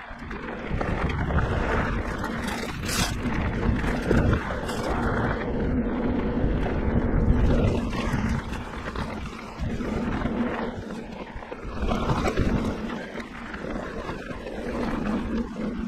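Wind rushing over the microphone of a Santa Cruz Hightower mountain bike riding fast along dirt singletrack, with tyre rumble and scattered knocks from the rough trail.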